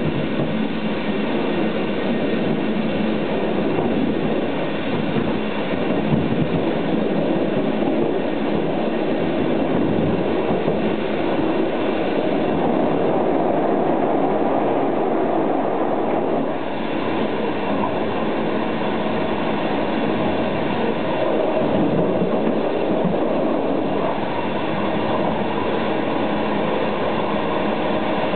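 Inside a moving Italian InterCity passenger coach: steady rumble and rattle of the car running over the rails, with wheel and track noise.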